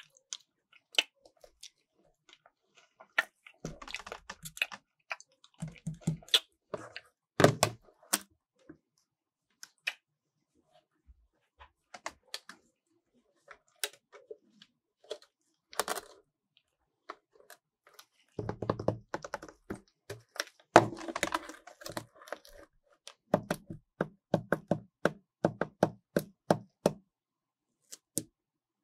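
Lightbox letter sign being handled and its plastic letter tiles changed: scattered clicks and taps, a few dull thunks as the sign is moved about, and a fast run of clicks in the last few seconds.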